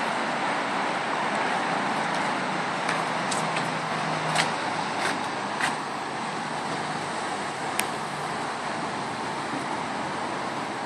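Steady traffic noise, with several sharp clicks between about three and six seconds in and one more near eight seconds.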